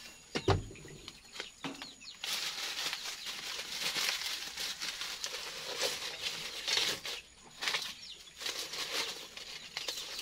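Dry husks rustling and crackling as they are crumpled by hand and packed into a wood-fired clay stove as fire starter, with a thump about half a second in.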